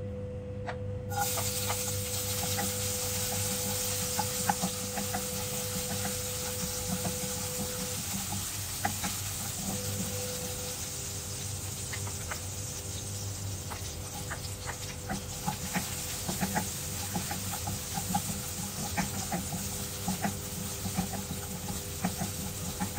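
Hot oil and coconut cream sizzling in a nonstick wok, the hiss starting suddenly about a second in, with many small crackling pops as strips of ginger and garlic fry and are stirred with a spatula.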